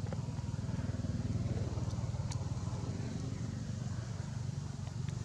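A small engine running steadily at a low pitch.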